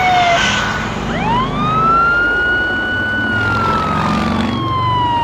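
Police siren sound, likely from the toy police car: a single electronic wail that rises steeply about a second in, holds, then slowly falls. A low hum runs underneath.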